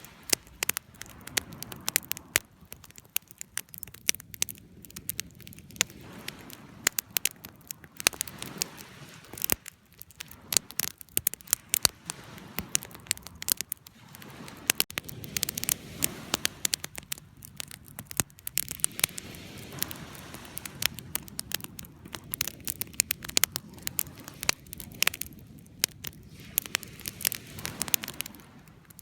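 Campfire crackling: a dense, irregular run of sharp pops and snaps over a soft low rush of burning wood.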